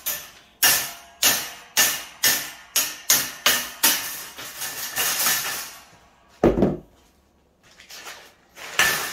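Ball-peen hammer striking the steel tube frame of a shopping cart: sharp, ringing metal blows about two a second, running into quicker, lighter taps after about four seconds. One duller thump comes about six and a half seconds in.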